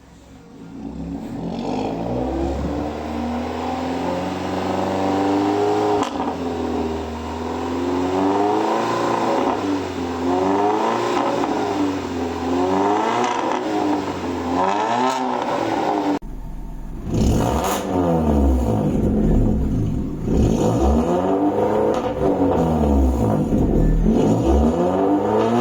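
Suzuki Swift Sport ZC32S's 1.6-litre four-cylinder engine revved again and again through a decat pipe and Remus exhaust, the pitch rising and falling with each rev. There is a sudden break about two-thirds of the way through before the revving carries on.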